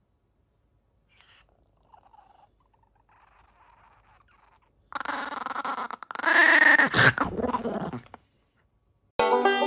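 Chihuahua puppy growling in warning while it guards its food from a reaching hand: about three seconds of small-dog growling, loudest in the middle and sliding down in pitch. Banjo music starts right at the end.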